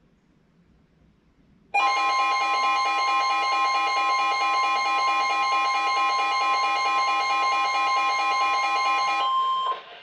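NOAA weather radio alert tone from the radio's speaker: a loud, steady, harsh two-tone alarm that starts about two seconds in, holds for about seven seconds, and cuts off just before the end. It signals that a weather warning broadcast is about to follow.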